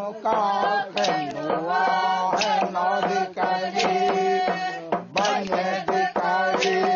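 Uitoto ritual chanting: a group of voices singing together over a steady low held tone, with sharp percussive knocks about every second.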